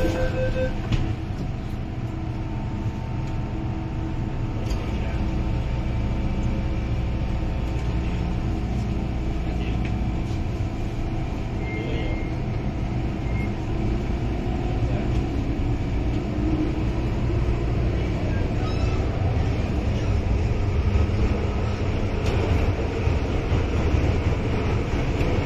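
MTR Island Line M-Train's traction motors whining as the train pulls away and picks up speed, over the rumble of the wheels on the track. Two motor tones can be heard at once, the unusual doubled motor sound of this car.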